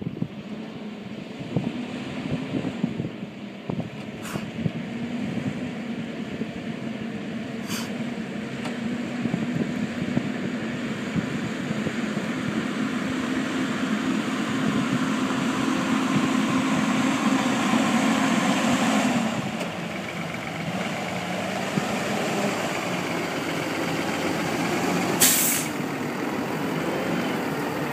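Feed truck's engine running steadily, its note slowly building and then falling away about two-thirds of the way through, with a short sharp hiss of air near the end.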